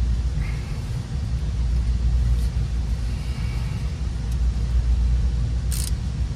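Steady low background rumble, with a single sharp metallic click near the end as a universal oil filter wrench on a ratchet is worked onto the oil filter.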